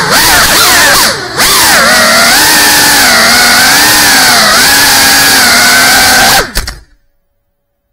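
GEPRC Cinelog 35 cinewhoop's brushless motors and ducted propellers whining, the pitch rising and falling constantly with the throttle, with a brief drop a little over a second in. About six and a half seconds in there are a few sharp clicks, and then the sound cuts off suddenly.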